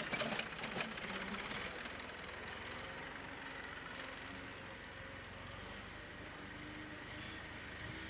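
Tractor engine running steadily at low revs while it tows a TMR feed-mixer wagon, with a few sharp clanks in the first second.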